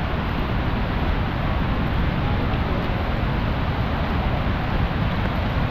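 Steady roar of the rain-swollen Athirappilly river and waterfall, in spate with the dam upstream opened, under falling rain.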